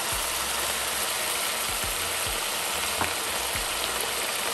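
Vegetables and mushrooms sizzling steadily in a frying pan as freshly added red wine and soy sauce bubble and reduce, with a few soft pops.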